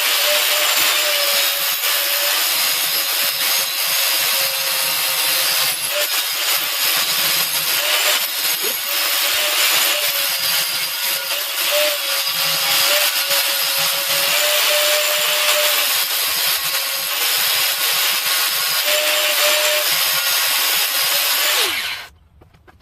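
Belt sander grinding the rounded steel head of a railroad rail flat: a steady, loud grinding hiss over a motor tone that wavers slightly under load. Near the end it is switched off and winds down.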